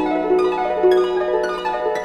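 Background music: a quick, flowing run of plucked notes, several a second, each ringing and fading, over a steady low held tone.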